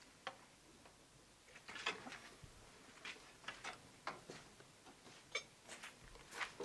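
A spanner clinking and tapping on the metal fittings of a Saviem air compressor mounted on a UTB 650 tractor engine: about a dozen light, irregular clicks, some in quick pairs.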